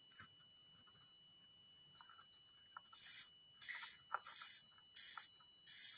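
Swiftlet chicks calling: a run of raspy, hissing chirps, about five in quick succession in the second half, each under half a second, with a few faint thin whistles just before them.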